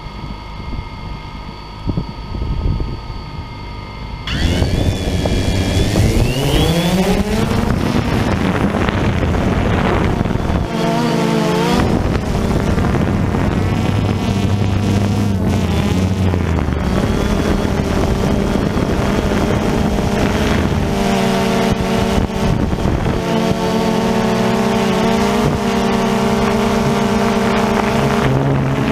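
DJI Phantom 2 quadcopter's motors and propellers, heard from the camera mounted on the drone. They whine steadily and more quietly at first. About four seconds in they throttle up for takeoff, rising in pitch, then settle into a loud, steady drone whose pitch shifts as the quadcopter flies.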